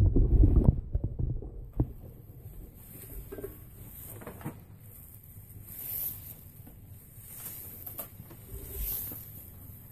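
Rustling and swishing of long braiding strands being handled and pulled through a rein braid by hand. Heavy handling bumps in the first second, then softer rustles that swell now and then.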